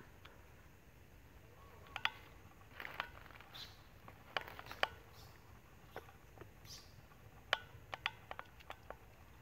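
A baby monkey at play: faint, irregular small taps and clicks, about a dozen, with a few short high squeaks among them.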